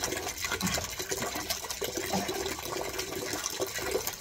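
Wet scrubbing and splashing as a soaked Rottweiler's coat is rubbed down by hand during a bath, a run of many short watery scrapes.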